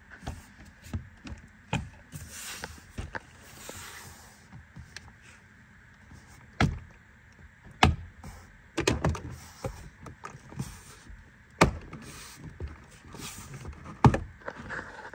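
Plastic door trim panel of a 2022 Subaru Outback being pushed and knocked onto the door by hand, with scattered sharp clicks and knocks as its push-in clips are lined up and seated. The loudest knocks come about halfway through and near the end.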